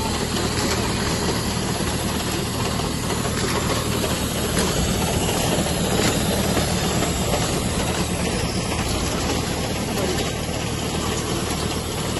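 Small motorized inter-row weeding machine running steadily as its tines work the soil between seedlings, with a constant low hum.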